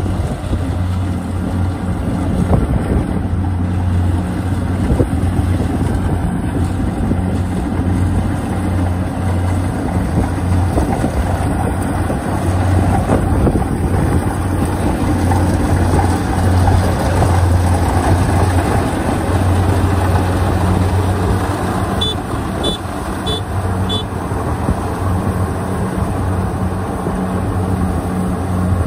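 Kubota DC70 Plus combine harvester, modified, running steadily as it cuts rice, with a low engine hum and the clatter of the machine. Near the end come four short high chirps.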